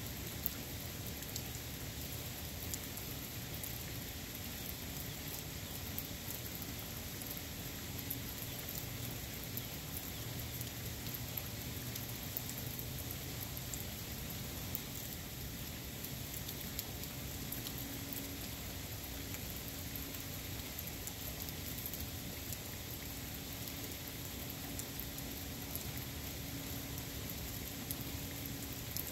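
Steady rain falling, with many scattered individual drops tapping sharply through the hiss.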